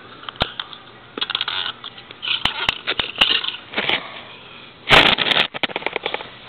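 Hard plastic Lego Hero Factory figure being handled and walked across a tile floor: scattered clicks and taps with short bursts of rustling hiss, and a loud bump about five seconds in followed by a quick run of clicks.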